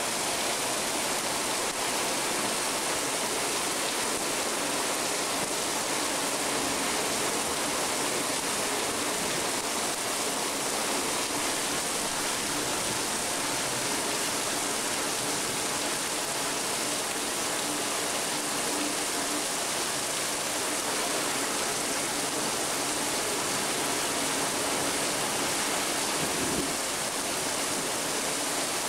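Heavy thunderstorm rain pouring down in a steady, even rush.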